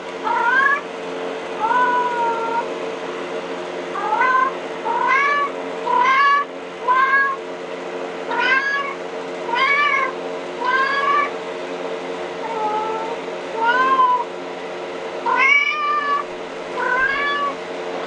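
Recorded kitten meows played through a phone's speaker: a string of high-pitched meows, about one a second, each rising and then falling in pitch.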